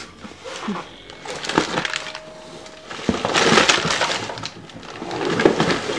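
A cardboard box tipped over and its contents spilling out: boxed and plastic-bagged yo-yos and packing plastic sliding and clattering together, with crinkling and hard little clicks. It is loudest about three to four seconds in, with another burst near the end.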